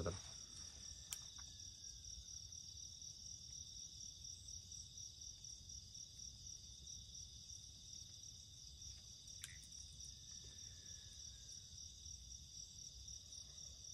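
Faint chorus of night insects, a steady high-pitched pulsing trill, with a soft click about a second in and another near the middle.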